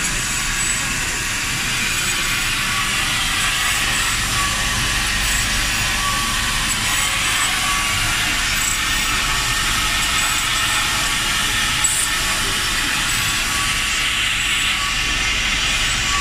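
Inline PCB depaneling router machine running, giving a steady, fairly loud high hiss of machinery, with a single sharp click about twelve seconds in.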